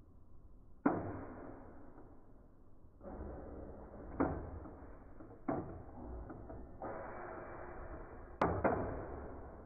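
Two Beyblade Burst tops spinning against each other in a plastic stadium, wobbling as they lose spin: a steady rattling grind as they rub and scrape the stadium floor, broken by sharp clicks of collision about five times, two close together near the end.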